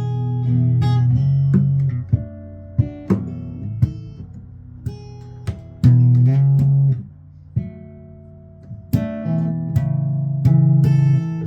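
Guitar being played: plucked notes and ringing chords, with louder sustained stretches and quieter single picked notes between them.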